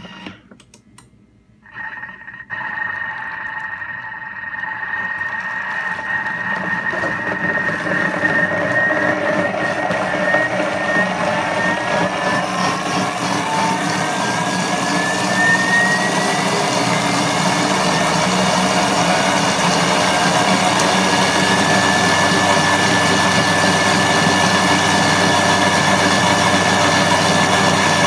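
Thermomix TM6's motor spinning its blade at speed 8, blending cooked vegetables into a cream soup. It starts about two seconds in and builds over several seconds to a loud, steady whine.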